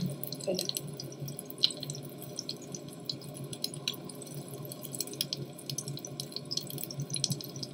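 Minced-meat kebab patties sizzling and crackling as they shallow-fry in hot oil in a pan, with a steady low hum underneath.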